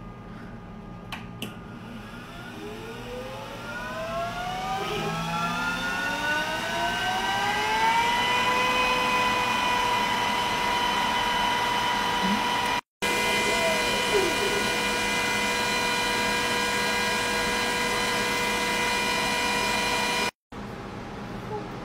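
Glowforge laser cutter's fans spinning up: a whine that rises in pitch for several seconds, then holds steady as a constant hum while the machine cuts. The sound drops out briefly twice; after the second dropout only a quieter steady fan hiss remains.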